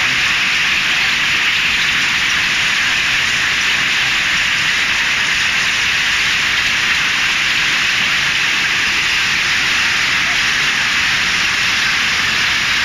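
Heavy hail mixed with rain pelting paving stones and wet pavement, a steady, dense hiss that does not let up.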